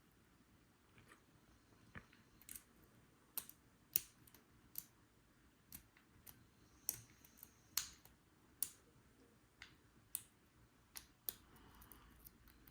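Faint, irregular sharp clicks of a lock pick working the pins inside a Paclock 90A Pro padlock, with the lock held in a deep false set.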